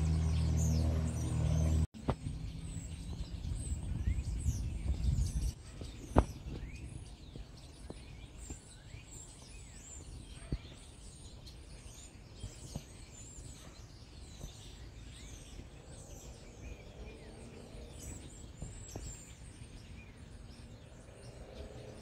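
A flock of small birds chirping together from a tree, many short falling notes overlapping. For about the first two seconds music plays and cuts off abruptly, and a low rumble follows for a few seconds.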